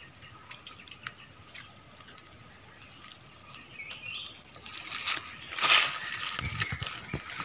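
Footsteps and body brushing through dry leaf litter and undergrowth: crackling and rustling that starts a few seconds in and is loudest just before the end. The opening stretch is quiet, with a few faint ticks.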